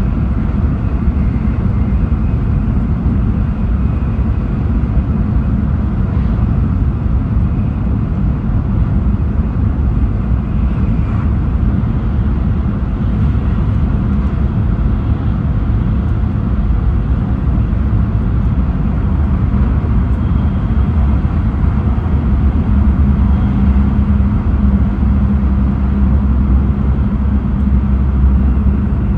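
Running noise heard inside a car of an E6 series Shinkansen travelling on the line: a steady low rumble of wheels and bogies on the track. It grows a little louder and deeper about three-quarters of the way through.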